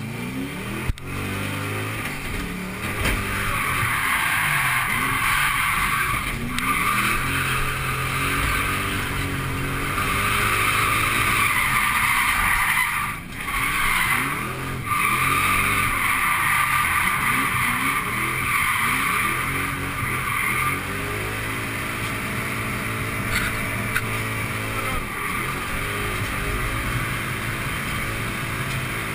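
Ford Mustang GT's 4.6-litre V8 revving up and down while drifting, with the tyres squealing through long slides, heard from inside the cabin. The squeal breaks off briefly twice, about halfway through.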